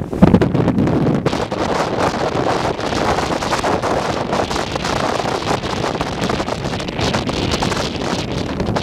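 Strong, gusty wind buffeting the microphone, a loud rushing roar that rises and falls unevenly.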